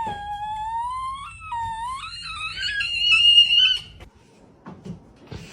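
A cat's long, drawn-out meow that rises in pitch, breaks once and climbs again to a loud, high end before stopping.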